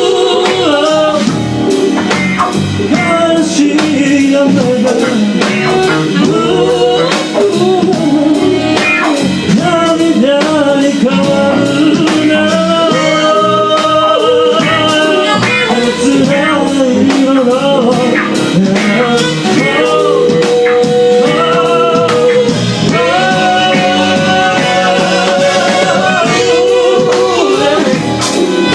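A live band arrangement with a lead singer over guitar and drums; the melody bends and holds long notes around the middle and towards the end.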